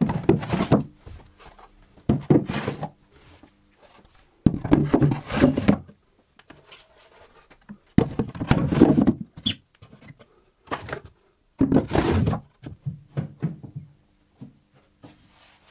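Wooden storage boxes slid into and out of their wall-cabinet compartments: a series of wood-on-wood scrapes and knocks, each lasting about a second, with short pauses between.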